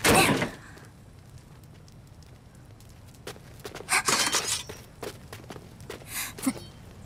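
A sudden loud crash right at the start, then quiet, then a few shorter scuffs and footsteps on dirt about four and six seconds in.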